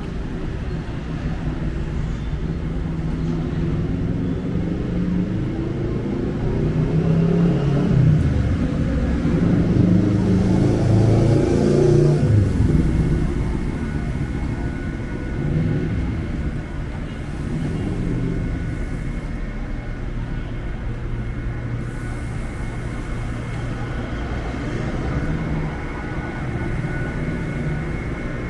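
Road traffic passing on a city street: a steady rumble of tyres and engines, with one vehicle passing close by, loudest about eight to thirteen seconds in, its engine pitch rising and falling as it goes.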